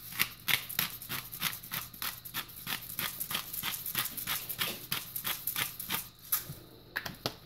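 Pepper grinder being twisted over the pot, a rapid run of dry clicks at about five a second, stopping briefly near the end before a few last clicks.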